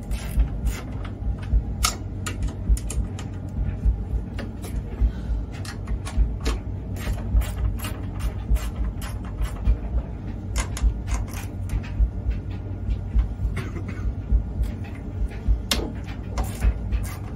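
Irregular sharp metallic clicks and taps, two or three a second, as a hand tool works the fixings on a gas boiler's burner and fan assembly, over a low steady rumble.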